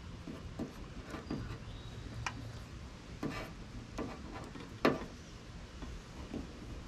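Quiet handling noises of an antenna cable being taped to an old wire: scattered small clicks, ticks and rustles, with a sharper tap just before five seconds in.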